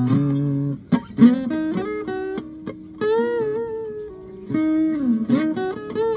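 Guitar being picked: a run of single notes and short phrases, several of them bent or slid so the pitch rises and falls. The guitar is tuned a half step down.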